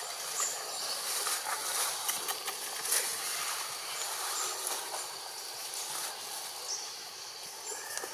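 Outdoor woodland ambience: a steady high-pitched hiss with a couple of thin steady tones in it, scattered light ticks and a few brief chirps.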